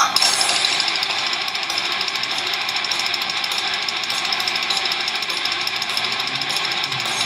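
Live heavy metal recording playing back loud: a dense wall of distorted guitars over very fast, even drumming.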